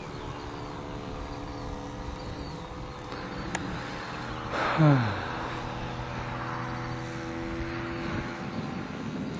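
A radio-controlled model airplane's small fuel-burning engine drones steadily overhead. About five seconds in comes a loud, quick sweep falling steeply in pitch.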